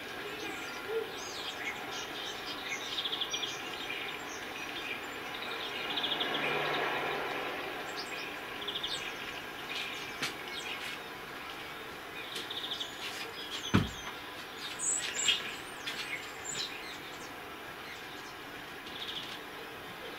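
Small birds chirping and trilling again and again over steady background noise, with one sharp knock about two-thirds of the way through.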